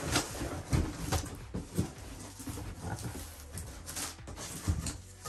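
Cardboard electric-bike shipping box being handled: a large box set down on the floor and its top flaps pulled open, a string of irregular knocks, thuds and cardboard scrapes.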